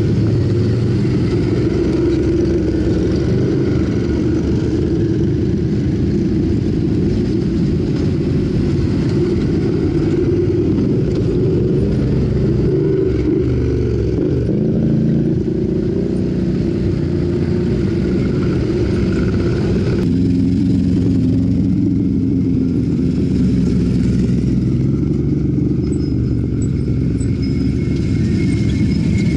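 Engines of several ATVs (quad bikes) running as a line of them rides past one after another over a rough track, revving with pitch rising and falling. The sound shifts abruptly about two-thirds of the way through.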